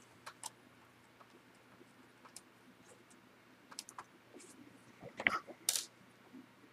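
Faint, scattered clicks and ticks of a small flathead screwdriver tip prying at the plastic edge of a Dell Vostro 1100 laptop keyboard to lift it out. About five seconds in come a few louder sharp knocks, the loudest near the end, as the camera is bumped.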